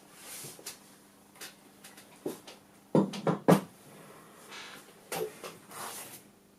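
Handling noises from a heavy gyro housing and its parts on a workbench: soft brushing and scraping, with three sharp knocks close together about three seconds in. Near the end comes a short scrape as the unit is set down on the bench.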